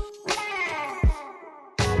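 Background music with a low drum beat and tones sliding down in pitch, the full music coming back in near the end.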